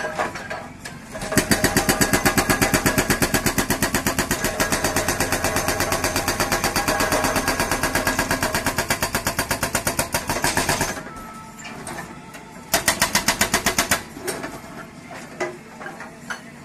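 Hydraulic rock breaker on a JCB backhoe loader hammering in rapid, evenly spaced blows. It runs for about ten seconds, stops, then hammers again briefly, with quieter machine noise in the pauses.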